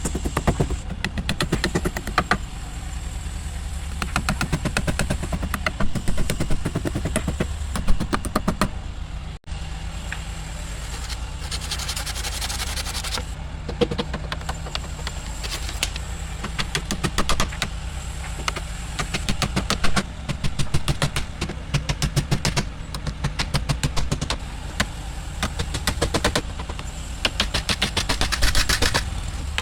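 Workshop tool noise: a motor running steadily with rapid clicking and tapping over it, broken off for a moment about nine seconds in.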